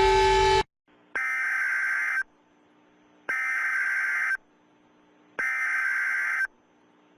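Emergency alert alarm tones: a loud, steady many-toned alert sound cuts off suddenly just over half a second in, followed by three long electronic beeps, each about a second long and about two seconds apart.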